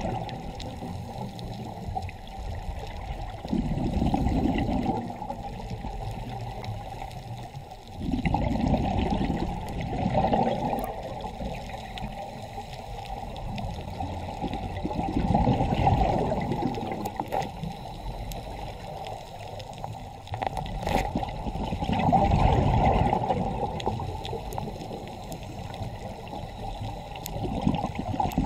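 Scuba regulator breathing heard underwater: muffled bursts of exhaled bubbles rising and fading roughly every six seconds, over a steady water rush.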